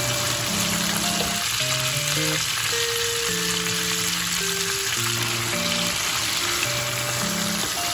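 Battered chicken pieces deep-frying in hot oil, a dense, steady sizzling and crackling. Soft background music with a simple melody plays over it.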